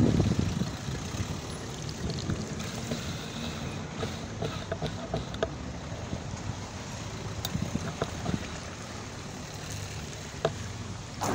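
BMX tyres rolling over wet tarmac: a steady hiss with a low rumble, with scattered clicks and rattles from the bike and a sharper knock near the end.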